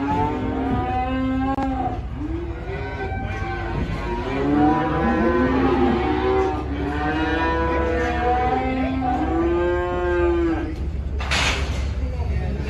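Many cattle mooing and bawling at once, their calls overlapping one after another over a steady low rumble. A brief loud rush of noise comes near the end.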